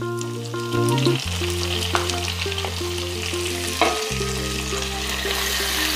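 Freshly added sliced onions sizzling in hot coconut oil with fried ginger and garlic, a wooden spatula scraping and stirring them around the aluminium pan; the sizzle grows louder near the end. Steady background music runs underneath.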